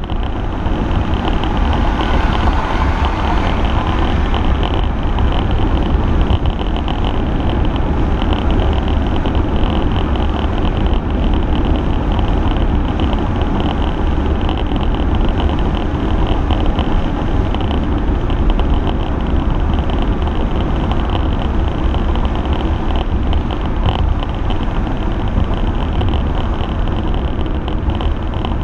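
1997 Ford Thunderbird LX with a 4.6 V8 driving at a steady speed, heard from inside the cabin: a steady drone of road, tyre and engine noise over a strong low rumble.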